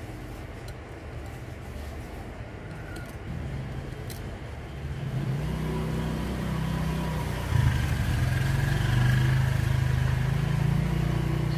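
Low engine hum of a motor vehicle, getting louder about halfway through and loudest from about two-thirds in. A few faint light clicks sound in the first few seconds.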